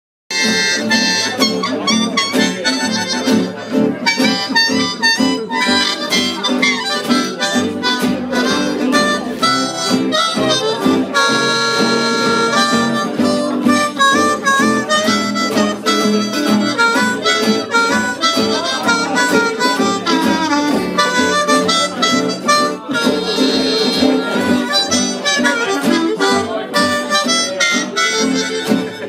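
Live acoustic blues band: a harmonica plays the lead melody over strummed acoustic guitars and a plucked upright double bass, with long held harmonica notes about eleven seconds in.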